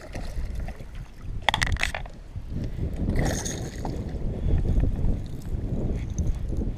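Hooked largemouth bass thrashing and splashing at the water's surface beside the boat, with sharper splashes about one and a half and three seconds in, over a steady low rumble of wind on the microphone.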